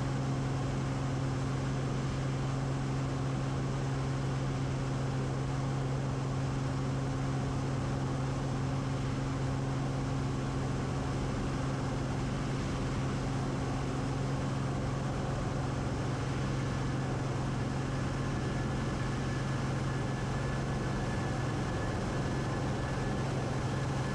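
Cessna 180's six-cylinder Continental O-470 engine and propeller droning steadily in flight on the landing approach. A faint thin high tone comes in about two-thirds of the way through.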